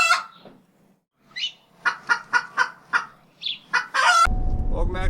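Domestic fowl calling in a run of short, quick notes, about four a second. Near the end a steady low rumble cuts in suddenly.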